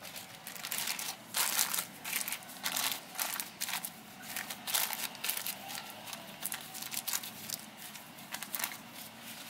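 Plastic cling film crinkling and crackling in irregular rustles as it is stretched over a bowl and pressed down by hand onto the surface of pastry cream.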